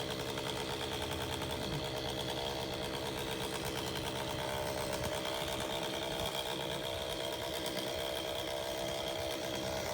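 Two-stroke chainsaw engine running steadily at an even speed while cutting.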